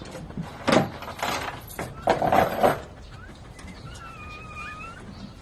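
Newborn puppies giving thin, high squeaky cries that waver up and down in the second half, after several loud, short rustling rushes.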